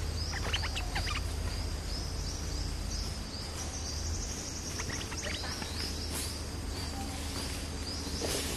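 Bulbul calls: a short, high note repeated steadily, with a couple of brief, louder sweeping calls about half a second in and again around five seconds in, over a low outdoor hum.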